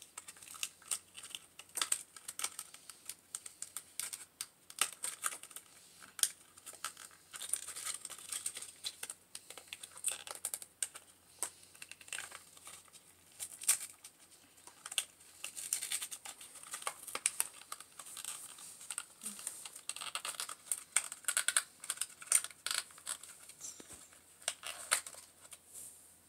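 Plastic toy packaging being crinkled and torn open by hand: irregular crackles, rustles and small sharp clicks throughout.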